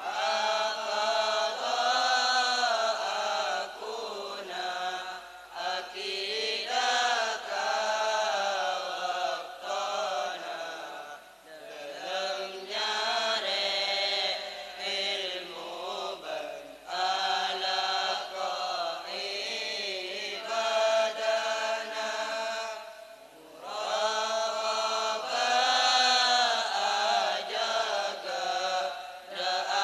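A group of boys chanting a Madurese syi'ir (sung Islamic verse) in unison, in long melodic phrases with brief breaks between lines.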